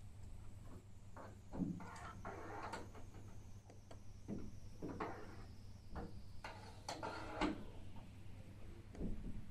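Irregular muffled knocks and scraping rubs, several over a few seconds, over a steady low hum.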